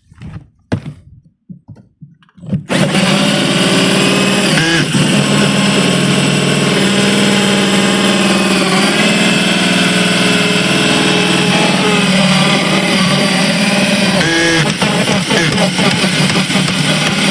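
A few short knocks, then an electric jigsaw switches on about three seconds in and runs steadily at full speed, cutting, with brief dips in pitch as the blade takes load.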